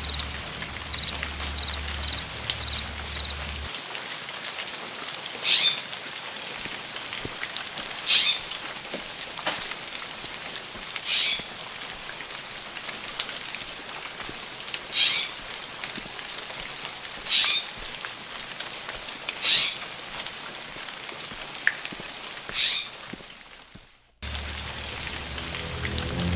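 Rain hissing steadily in jungle foliage, with a short, loud hissing burst every two to four seconds and a quick chirp about twice a second in the first few seconds. A low drone stops about four seconds in, and the whole fades out just before the end.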